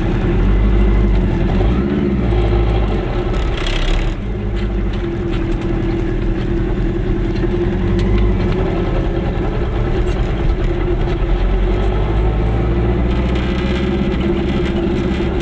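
Goggomobil's small two-stroke twin engine running steadily while driving, heard from inside the car's cabin, with a slight rise and fall in pitch about two seconds in.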